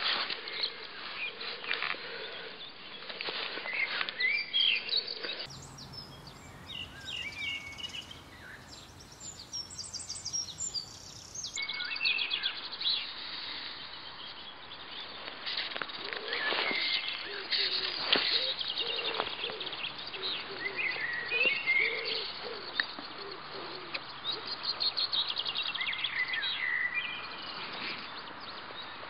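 Several small birds singing and chirping, with short trills and calls overlapping throughout.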